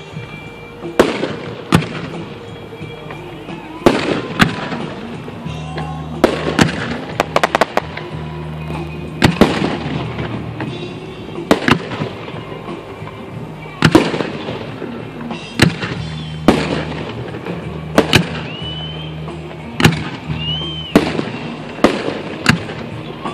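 Aerial firework shells bursting with sharp bangs, one every one to two seconds, with a quick string of crackling reports about seven seconds in.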